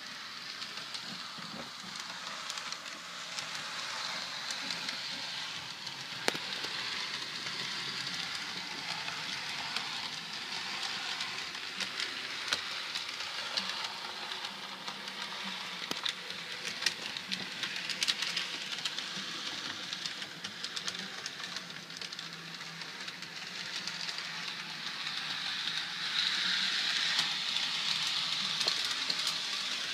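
Walthers F40PH HO-scale model locomotive running along the track: a steady whirring hiss of the motor and wheels on the rails, with scattered sharp clicks, growing louder for the last few seconds.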